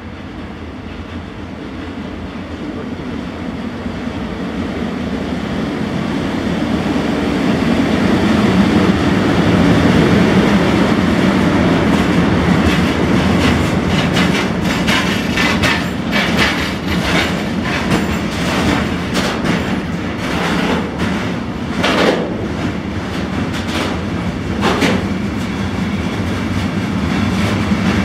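Container freight train passing close by, hauled by an electric locomotive. The rumble builds as it approaches, then the loaded container wagons roll past with irregular wheel clatter over the rail joints, with two sharp clacks in the second half.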